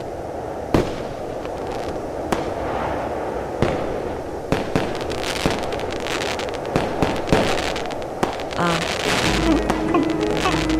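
Fireworks going off: sharp bangs about every second over a continuous crackle, with the crackling growing denser partway through. A low droning tone comes in near the end.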